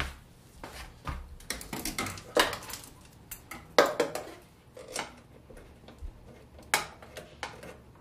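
Irregular metallic clinks, clicks and knocks of hands and tools working a clutch hydraulic line fitting under the hood, the loudest knocks about two and a half and four seconds in.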